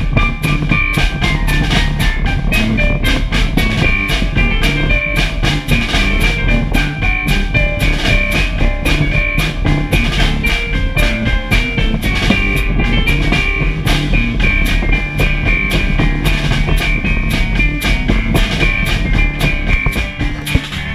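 Live rock band playing with a steady beat: electric keyboard over a drum kit and guitar.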